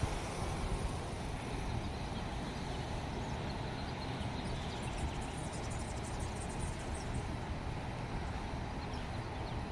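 Steady outdoor street ambience: an even background noise with a low rumble, without any distinct events.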